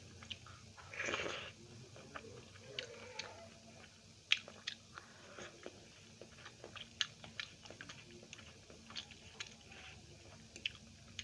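A person chewing and biting into food, with many short mouth clicks and smacks and one longer, louder sound about a second in.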